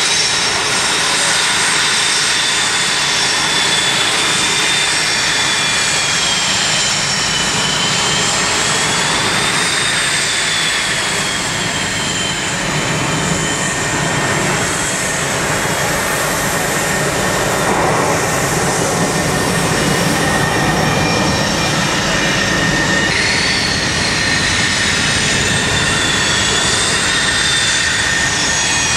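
Military jet engines running steadily: a continuous roar with a high turbine whine whose pitch slowly wavers up and down, and another whine rising in near the end.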